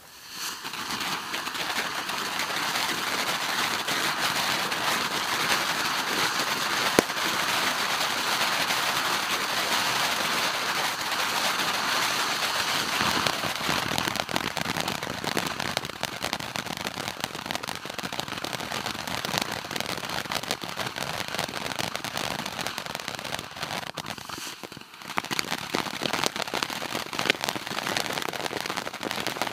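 ZEN consumer firework giving off a dense, continuous crackle, with one sharper pop about seven seconds in and a short lull near the end before the crackling picks up again.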